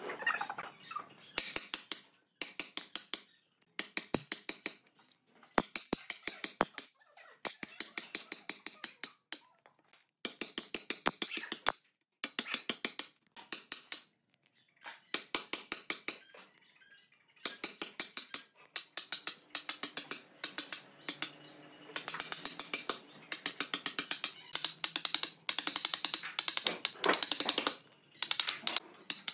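Wood chisel struck repeatedly, chopping out the waste between saw kerfs in a tree stump: quick bursts of sharp taps, about six a second, with short pauses between the bursts.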